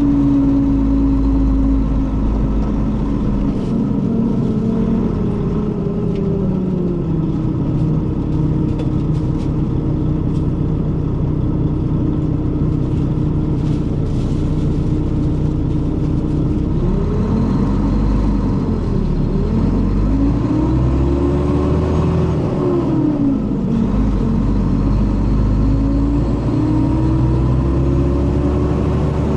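Mercedes-Benz O500RS coach engine under way. Its note first drops and holds steady, then from a little past halfway it rises and falls three times as the bus pulls up through the gears. The title likens the engine sound to that of the older O400RSE.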